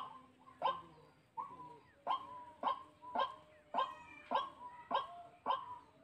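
White-breasted waterhen (dahuk) calling: a harsh, croaking call repeated steadily, a little under two calls a second, each call short with a falling tail. Fainter overlapping calls join in midway.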